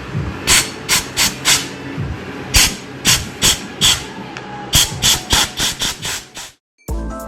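Compressed-air blow gun firing a dozen or more short hissing blasts in quick clusters, used to balloon a rubber snowmobile grip so it slides onto the handlebar. The blasts stop abruptly near the end and music comes in.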